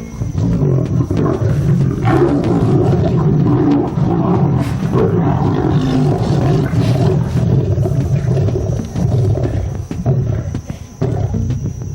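Several lions growling and snarling continuously as they fight over a kill, swelling louder about two seconds in.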